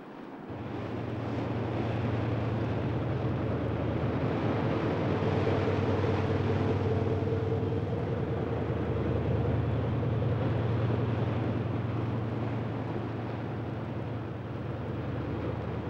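A small motor launch's engine drones steadily over a rush of water and wind noise, fading in during the first second. A fainter, higher steady hum comes in about four seconds in.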